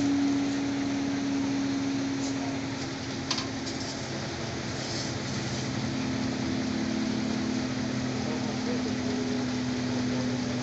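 An engine idling with a steady low hum, its pitch shifting slightly about six seconds in, and one sharp click a little past three seconds.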